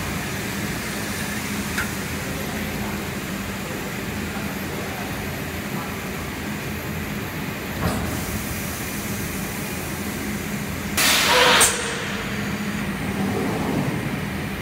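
TSMP-9570 thermoforming machine's forming station running with a steady hum. A light click comes about two seconds in and a knock near eight seconds as the mould platen moves. A loud hiss of air lasting under a second follows about eleven seconds in.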